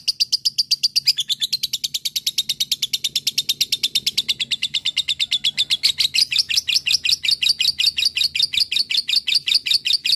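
Lovebird's long 'ngekek': a rapid, unbroken chattering trill of shrill notes, about eight a second. About a second in, a lower second voice of notes joins, and from about six seconds in the notes sound a little higher and louder.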